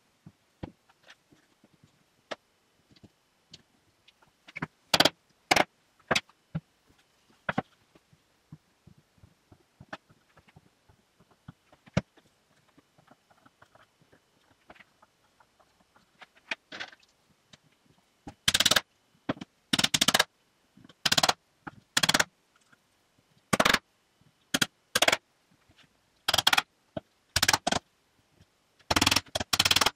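Hammer blows on spruce boards, tapping a glued dowel-jointed crosspiece down onto its dowels. The first half holds a few light knocks and handling sounds; the blows start about two-thirds of the way in and come roughly once a second, several close together near the end.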